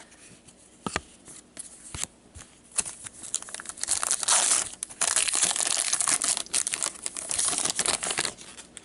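A hockey trading-card pack wrapper being torn open and crinkled. A few light clicks of card handling come first, then about five seconds of dense crinkling and tearing from around three and a half seconds in, stopping just before the end.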